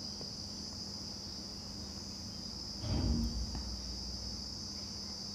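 Sewing machine stitching briefly, for under a second about three seconds in, over a steady high-pitched background trill.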